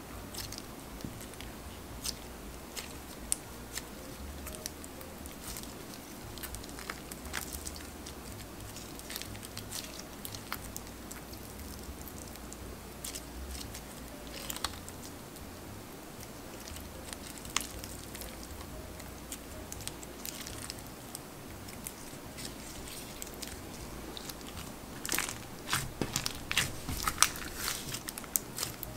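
Hands squeezing and stretching a pink crunchy slime with a clay-butter texture and foam beads, giving scattered small crackles and pops that come thicker near the end.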